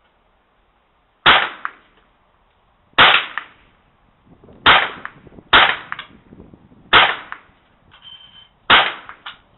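Six sharp rifle shots from a .22 Savage 64 and a .177 break-barrel air rifle, fired at uneven intervals, most followed a moment later by a fainter crack. A short high ringing tone comes just before the last shot.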